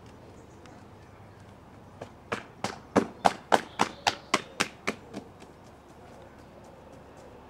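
Hands slapping down the body and legs in qigong slapping: about a dozen sharp slaps at roughly four a second, loudest in the middle and weaker as they reach the lower legs.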